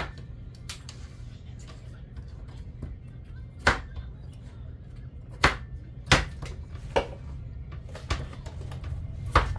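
Kitchen knife cutting raw potato into bite-size pieces on a cutting board: sharp, irregular knocks about once a second over a steady low hum.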